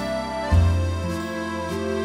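Background music: sustained instrumental chords over a deep bass note that changes about half a second in.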